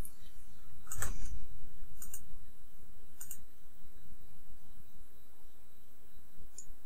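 Computer mouse clicking several times, about one click a second at first and once more near the end. The loudest click, about a second in, comes with a dull thump.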